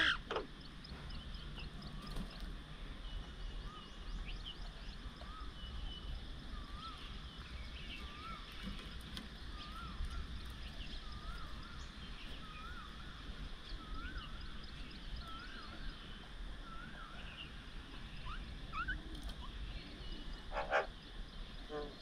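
Birds calling: one repeats a short note that rises then falls, over and over through the middle, while other birds chirp higher up. A low steady rumble runs underneath.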